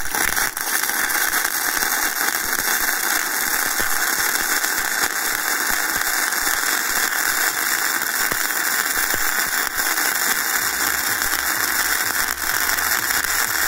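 EENOUR MIG120L semi-automatic welder running a bead with gasless flux-cored wire: the arc gives a steady, even crackling sizzle with no breaks.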